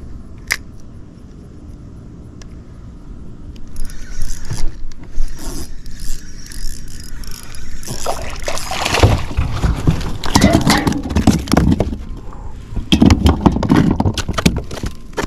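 Knocking and rattling on a fishing kayak, quiet at first and much louder from about four seconds in, with heavy irregular thumps through the second half.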